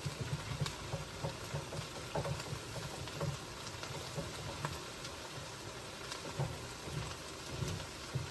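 Chicken and rice sizzling in a frying pan: a steady crackling hiss with scattered small clicks and taps.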